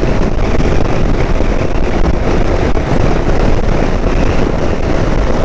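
Wind rushing over the microphone of a Hero Xpulse 200 motorcycle cruising in fifth gear at highway speed, with its single-cylinder engine running steadily underneath. The sound is a loud, even rumble and hiss with no change.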